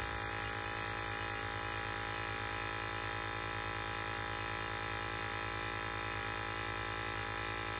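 Steady hum from an Ideal Icos gas boiler that is showing a fault code.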